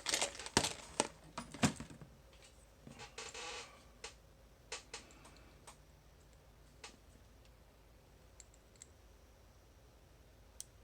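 Small metal clicks and taps of tweezers picking pins and springs out of a padlock's pin-tumbler core, quick and dense for the first two seconds, then a brief scrape and a few scattered clicks.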